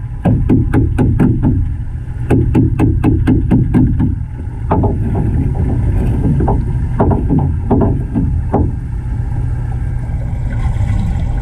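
Steady low underwater rumble of moving water in a large aquarium tank, with runs of sharp clicks or taps, about four or five a second, that break up into sparser, irregular clicks a little past halfway.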